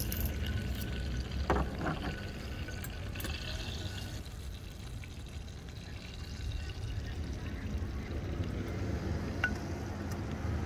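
Steady sizzling hiss from a frying pan of hot butter and herbs on a portable butane stove.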